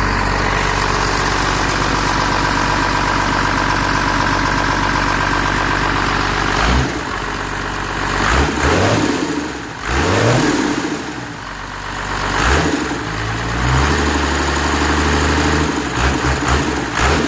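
Cummins 12-valve inline-six turbodiesel running through twin stack exhausts: it idles steadily, then is revved up and let fall back several times. It then holds a raised speed, with a few quick blips near the end.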